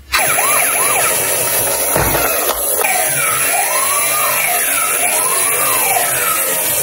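Electronic toy emergency-vehicle siren sounding. It starts abruptly with a fast yelp, then changes to a slower up-and-down wail about three seconds in, over a steady electronic hiss.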